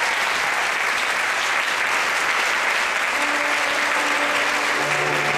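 Theatre audience applauding steadily at the end of a musical number, with a few held instrument notes starting about three seconds in.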